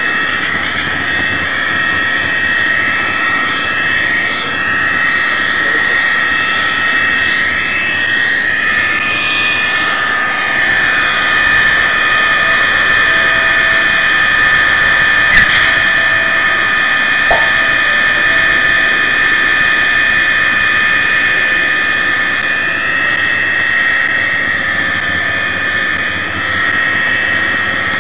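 A model locomotive's sound decoder plays simulated Class 66 diesel engine sound through its small speaker: a steady engine drone and whine with a few pitch shifts, over the rolling of the model train. There is a single sharp click about a quarter of the way past the middle.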